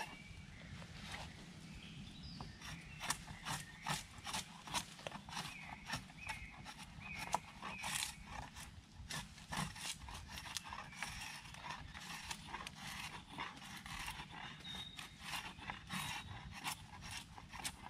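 Bushcraft knife used two-handed as a drawknife, shaving a green wood pole: a run of short scraping cuts, about two or three a second.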